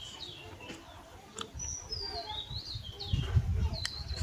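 A bird singing: two series of high, whistled notes that step downward in pitch, with a few short clicks. Low muffled knocks and rumble come in over the second half and are loudest about three seconds in.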